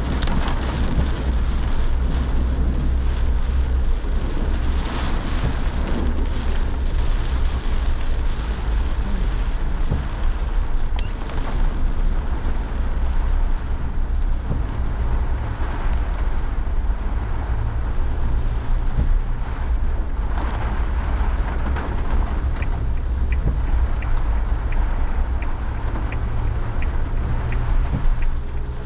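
Heavy rain falling steadily, with wind buffeting the microphone in a constant low rumble.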